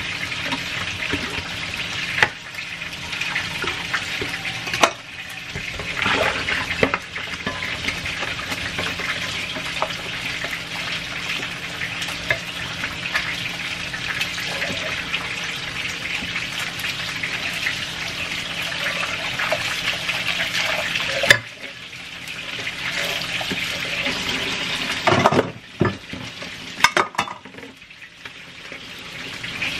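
Kitchen tap running into a stainless steel sink while dishes are scrubbed under it with a sponge: a steady splashing of water with occasional knocks of plastic bowls and a colander against the sink, and the water noise dipping briefly twice in the later part.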